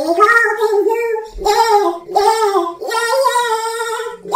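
A gospel singing voice pitched up into a high, squeaky chipmunk voice, a single voice holding long notes that waver in pitch.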